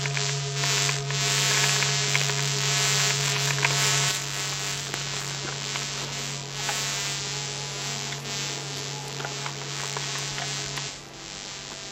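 A steady low electrical hum with a static hiss over it, dropping in level about four seconds in and cutting off near the end, with faint scattered clicks.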